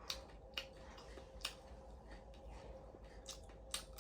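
A person biting and chewing whole cooked shrimp with shells and legs left on: a few sharp, crisp crunches at irregular intervals.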